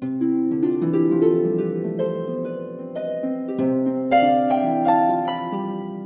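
Background music: a quick run of plucked, harp-like notes over lower held tones.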